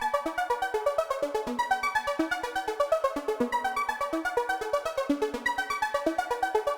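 Electronic music: a fast synthesizer arpeggio of short repeated notes over a quick, even ticking beat.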